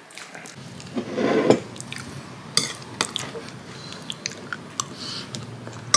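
A person chewing a mouthful of soft rice mixed with fried egg and hot chocolate, with many small wet clicks and a short low hum about a second in.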